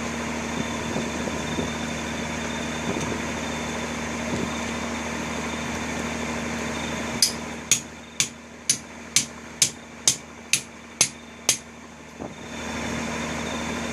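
A steady motor hum. About halfway through the hum drops away and a run of about ten sharp, evenly spaced knocks follows, roughly two a second.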